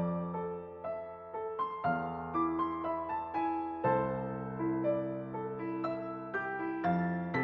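Background piano music: a melody of single notes played over held low chords that change every two to three seconds.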